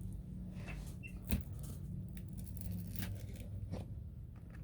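A few faint clicks and scrapes of a thin pry tool working between an iPhone XR's glued screen and its metal frame, over a low steady hum.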